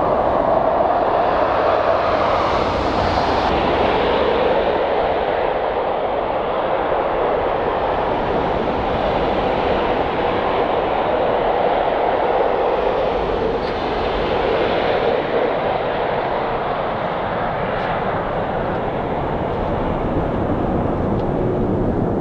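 Boeing 777-300 jet engines during a snowy landing rollout: a steady, loud rush and rumble, with a blurred hum that slowly drifts in pitch.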